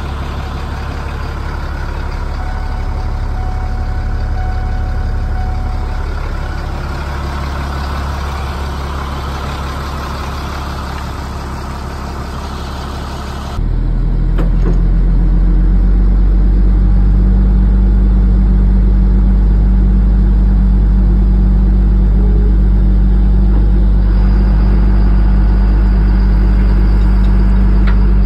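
2002 Ford F-650 box truck's diesel engine idling steadily. About halfway through it abruptly becomes louder, with a much stronger low hum.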